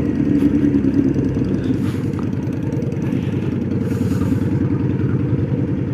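Motorcycle engine running steadily under way, a dense low rumble with no break.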